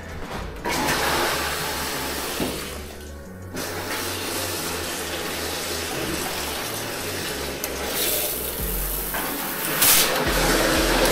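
Water running hard from a tap as the new plumbing's pressure is checked, dipping briefly about three seconds in and getting louder near the end.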